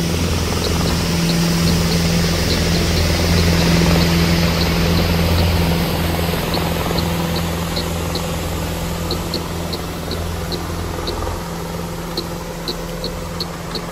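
A steady low engine-like drone, a sound effect being moved around the listener by a 3D panning plug-in. It swells about four seconds in, then slowly fades, with faint short high ticks scattered through it.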